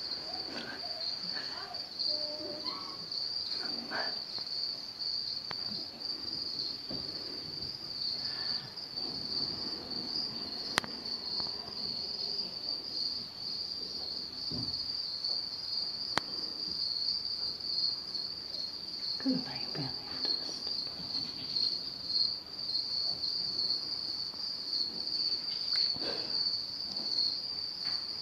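Crickets chirring in one steady high trill, with faint voices now and then in the background.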